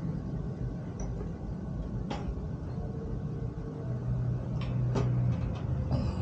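Scattered clicks and knocks of a folding camping stove's parts being handled and fitted together, over a steady low hum.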